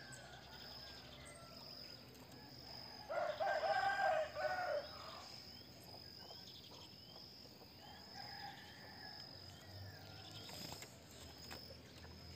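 A rooster crows once, about three seconds in, over a steady high-pitched insect drone; a few faint short chirps follow.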